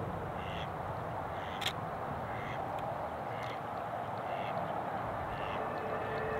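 Mallard ducks quacking, short calls repeating about once a second over a steady rushing background. A single sharp click sounds about a second and a half in.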